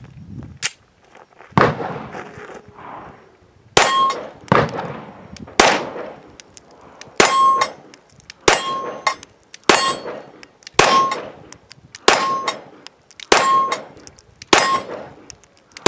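Sig P320 X5 9mm pistol fired at a steady, unhurried pace, about a dozen shots a second or so apart. From about four seconds in, most shots are followed by the clang and ring of a steel target plate being hit.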